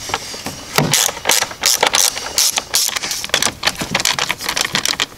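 Ratchet with a 10 mm socket on an extension clicking in quick, irregular runs as it loosens bolts on an engine cover.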